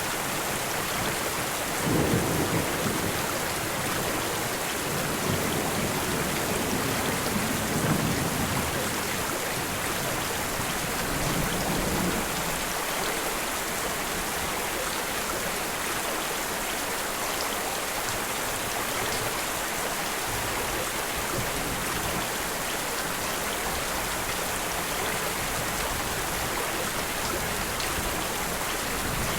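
Steady rain, with a few low rolls of thunder in the first twelve seconds or so that then die away, leaving only the rain.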